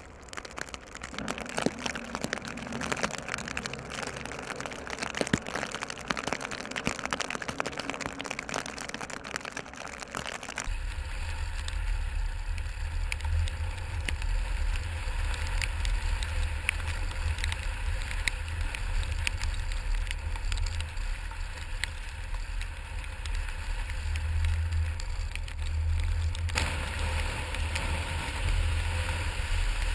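A crackling, rain-like hiss of wet snow and slush for about the first ten seconds. Then, after a sudden change, a steady low road rumble from inside a moving car.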